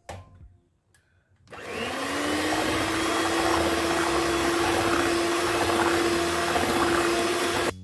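Electric hand mixer switched on at low speed about a second and a half in, its motor whine rising briefly and then holding steady as the beaters mix whipped cream into mango purée. It cuts off suddenly at the end.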